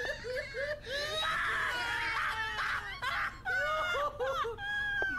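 High-pitched squealing, laughing voices: quick rising-and-falling squeaks several times a second, with a few brief breaks.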